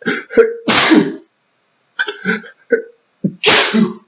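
A man sneezing twice, each loud sneeze led by short catching 'ah' breaths, part of an allergic sneezing fit set off by chinchilla dust.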